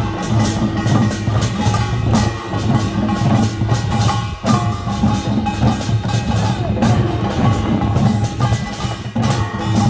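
Korean traditional percussion band playing a fast, dense, steady rhythm on drums and gongs, with a held melodic line sounding above the beat.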